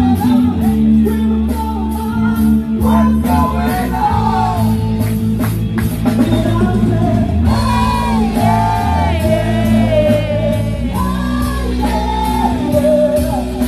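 Song with a singer over a steady bass line and a regular drum beat.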